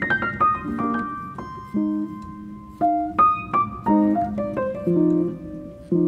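Background piano music: a slow melody of single struck notes over low chords, opening with a quick falling run of notes.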